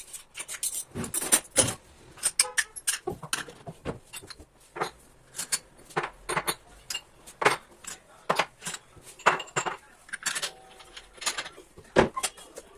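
Dishes and utensils being handled in a kitchen: irregular sharp clinks and knocks of cutlery, glass and crockery, with a brief ringing tone about ten seconds in.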